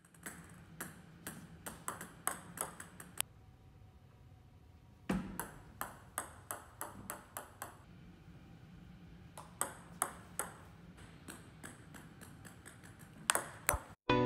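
Table tennis ball clicking off the bat and bouncing on the table in quick runs of hits, with short pauses between runs, the loudest pair near the end.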